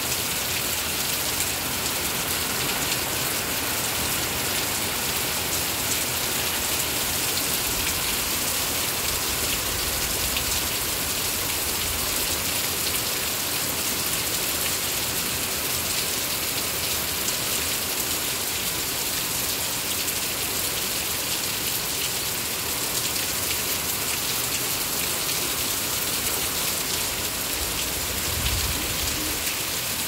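Heavy rain with hail pouring down: a steady, dense hiss of falling drops and pellets.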